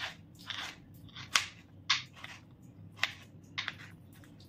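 Kitchen knife dicing soft peeled mango on a plastic cutting board: about eight short, irregular cutting strokes, each ending in a light tap of the blade on the board, the loudest about a second and a half in.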